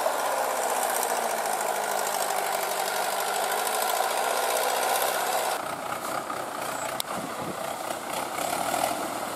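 Farm tractor's diesel engine running steadily under load as its cage wheels churn through a puddled paddy field. About five and a half seconds in, the sound cuts to another tractor's engine, rougher and noisier, with a single sharp click shortly after.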